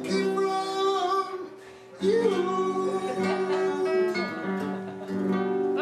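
A song: a voice singing over acoustic guitar, with a brief lull about one and a half seconds in.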